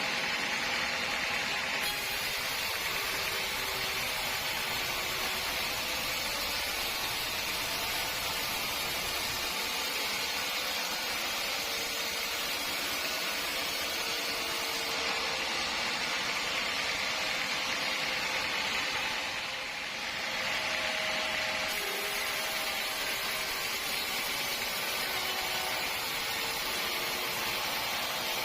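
Sawmill saw running steadily on teak logs: a continuous mechanical whir and hiss with no breaks.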